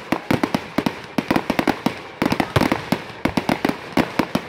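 Fireworks display: a rapid, irregular run of sharp bangs and pops, several a second, without a pause.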